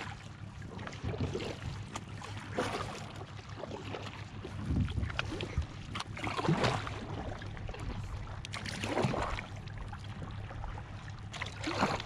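Double-bladed kayak paddles dipping and splashing in lake water beside an inflatable kayak, one soft stroke roughly every two seconds.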